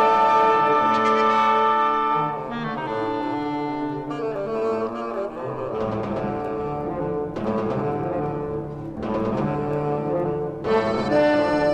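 Orchestral film score with brass carrying held chords that change every second or two.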